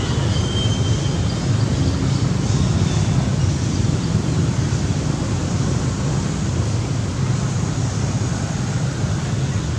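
Steady, loud, low rumbling noise of wind buffeting the microphone.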